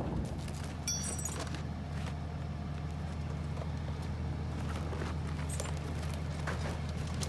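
Farm tractor's diesel engine running at a steady speed, a low even drone, with a few light rattles about a second in.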